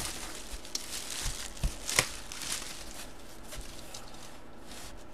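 Cardboard box being handled and turned over: a few light taps and knocks, the sharpest about two seconds in, with faint rubbing of hands on cardboard.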